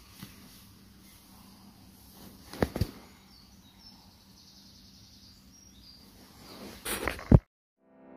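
Knocks and bumps of clothing and gear being handled close to the microphone over quiet woodland background. There are two sharp knocks about two and a half seconds in, and a louder cluster near the end that stops abruptly on one sharp hit. Faint high bird chirps come and go in the middle.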